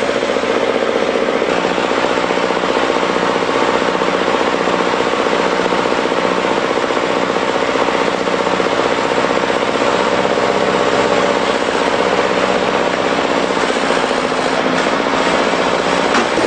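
Heavy diesel tractor engines running hard under load, a steady deep drone with a fast clatter.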